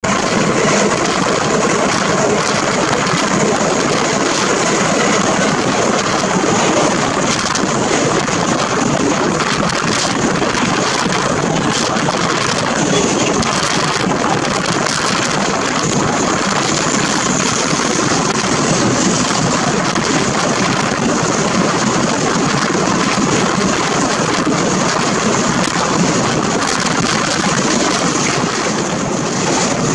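Steady rush of wind and wheels running on the rails, heard at the open window of a moving passenger train.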